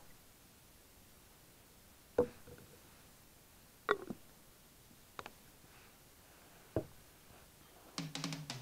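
A few sparse clicks and light knocks from a small metal cook pot and a screw-on gas canister stove being handled on a wooden table, four separate strokes against a quiet background. Near the end a quick run of clicks comes as music begins.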